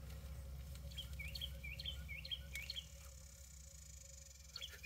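A songbird singing a quick run of about five identical swooping notes, each dipping and rising again, over a second and a half or so, then falling quiet. A faint steady low hum of background noise lies underneath.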